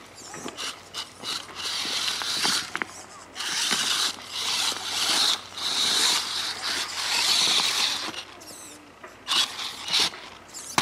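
Radio-controlled trail truck's motor and geared drivetrain whirring in stop-start throttle bursts of up to about two seconds each, with short pauses between.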